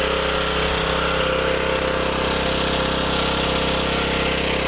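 Small portable gasoline generator's engine running steadily at its governed speed with no load. It is running on the last of its fuel, pretty much down to the float bowl.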